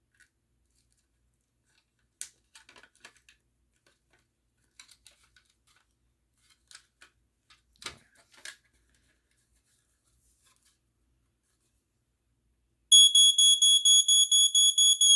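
A few faint clicks and taps, then near the end the Black & Decker SMK-200 smoke alarm's horn goes off on test: a loud, shrill, high beeping in rapid pulses, about four or five a second. To its owner the horn sounds a little off.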